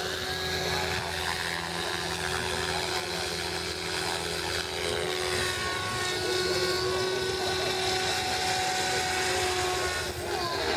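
Radio-controlled model helicopter flying overhead: a steady whine from its motor and rotors, drifting slightly in pitch as it manoeuvres.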